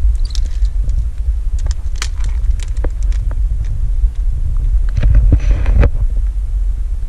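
Wind buffeting the camera's microphone as a loud, steady low rumble, with scattered clicks and crackles and a brief hiss about five seconds in.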